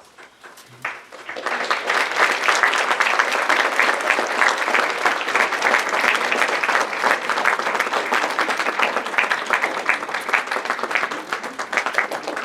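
Audience applauding: a few scattered claps, then the whole crowd joins in about a second and a half in and keeps up steady applause.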